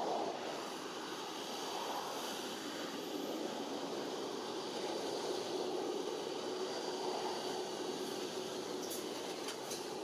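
Steady rushing outdoor background noise, with a faint steady hum joining about halfway through and a few short, sharp high ticks near the end.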